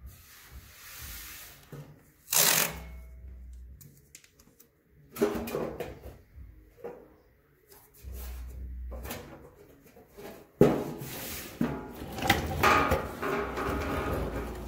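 Tape being pulled off its roll and pressed along a new rocker panel: short ripping pulls and rubbing, with handling knocks that grow busier in the last few seconds.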